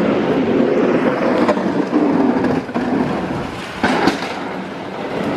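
A loud, steady rumbling noise, thunder-like enough to be taken for thunder, with a couple of brief sharp clicks about four seconds in.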